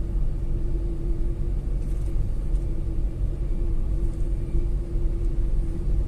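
Inside the cabin of a Tata Altroz petrol car cruising in third gear at about 2000 rpm: the three-cylinder engine gives a steady low rumble with an even hum, mixed with road noise. The owner finds it slightly smoother and quieter after a fresh oil and air filter change.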